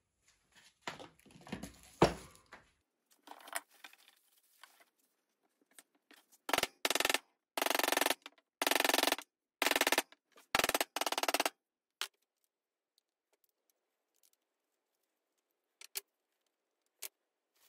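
Small hammer tapping rapidly on a knife's steel tang, in about seven short runs of quick strikes, with handling knocks before and two light clicks near the end.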